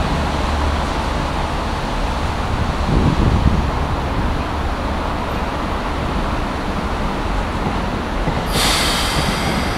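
Keikyu 2000 series electric train standing at the platform, its equipment running with a steady low hum. There is a brief low rumble about three seconds in, and a sudden hiss of air from the train about eight and a half seconds in.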